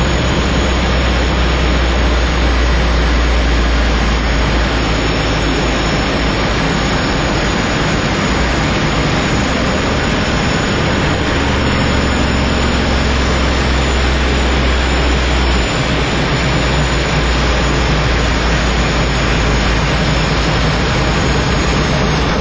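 Aircraft in flight: a loud, steady drone of engine and rushing air with a deep rumble underneath.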